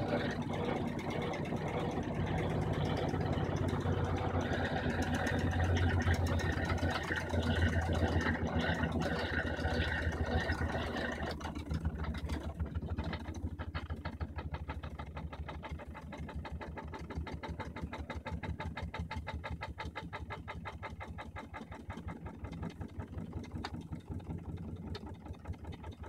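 Brastemp 15 kg top-load washing machine spinning its basket, with a steady mechanical hum. About halfway the sound drops and it runs on more quietly, the basket still turning.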